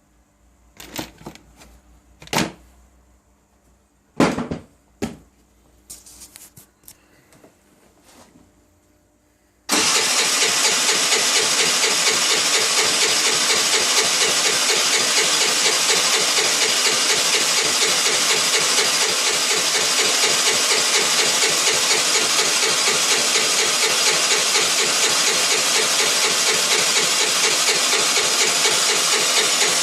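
A few sharp knocks and clicks, then about ten seconds in the 2008 Baotian Tanco 50cc four-stroke scooter engine is suddenly running, fast and steady with an even pulsing beat. The engine has finally started after a long hard start.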